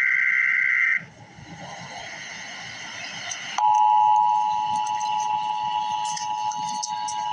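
Emergency Alert System broadcast: the end of a raspy two-pitch digital header burst, then radio hiss with crackles. About three and a half seconds in, the steady two-tone EAS attention signal starts and holds.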